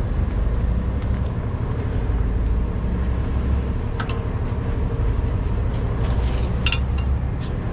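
Heavy wrecker's diesel engine idling steadily with a low rumble. A few light metal clicks and clinks from strap hooks and chains being handled come about four seconds in and again near the end.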